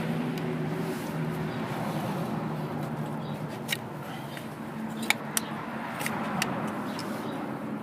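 Metal tools clinking sharply a handful of times, spread through the second half, during work on an engine. Under them runs a steady low hum, like a motor vehicle running nearby.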